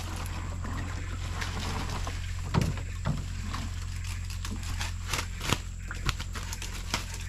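Netted fish trap being hauled up out of the river against the side of a wooden boat: water trickles and splashes, with several sharp knocks in the second half as the trap's wooden frame bumps the boat.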